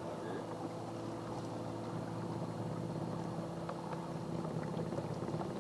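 Boat motor running steadily at trolling speed, a constant low hum.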